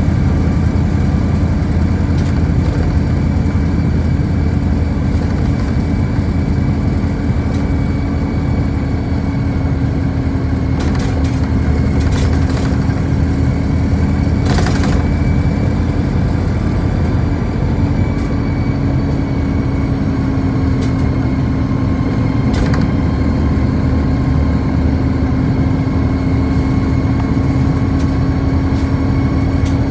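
City bus heard from inside the cabin while driving: steady engine and road rumble with a constant hum, and a few short sharp knocks along the way.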